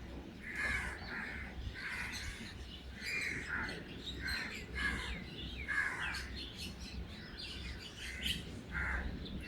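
Birds calling in the background: a string of short calls, about one or two a second.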